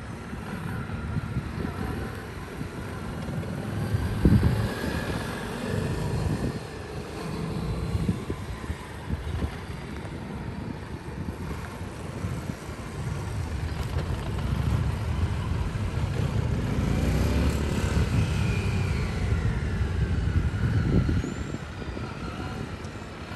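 Several small training motorcycles riding at low speed, their engines revving up and easing off as they pass, over a low rumble. There is a dull thump about four seconds in.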